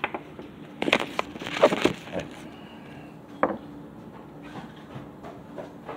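A series of knocks and clattering handling sounds, loudest in a cluster about one to two seconds in, with a single sharp knock a little later, over a faint steady hum.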